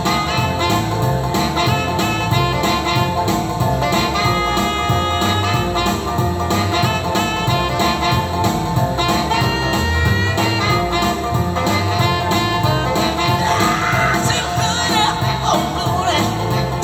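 Live amplified music from a stage keyboard player, with a steady beat and a voice singing at times.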